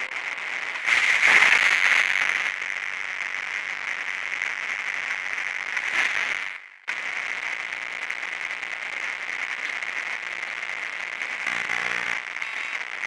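Steady crackling static that cuts out abruptly for a moment about seven seconds in, then carries on.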